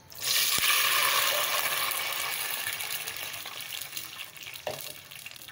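Water poured into a pot of hot ghee with green cardamom pods, hissing and sizzling at once, then slowly dying down over several seconds as the ghee cools under the water.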